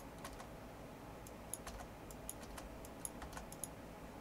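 Faint computer keyboard keystrokes: scattered, irregular clicks as a value is typed in.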